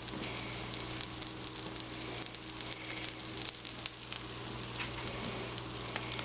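Grilled cheese sandwiches frying in butter in a hot pan: a steady sizzling hiss with scattered small pops.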